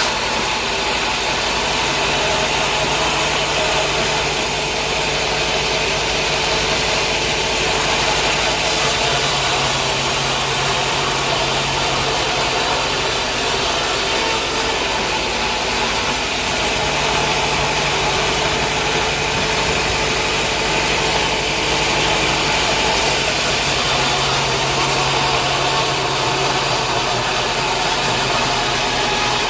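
Sawmill machinery running steadily: a continuous mechanical drone and noise, with a low hum that shifts slightly a couple of times.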